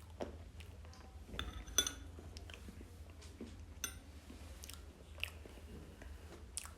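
Close-miked mouth sounds of eating vegan ice cream: soft chewing and smacking, with a few scattered clicks and one sharp ringing click a little under two seconds in, likely a spoon against the cup.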